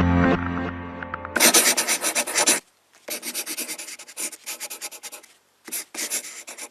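Background music fading out in the first second and a half, followed by three runs of quick, rough rubbing or scratching strokes with short gaps between them.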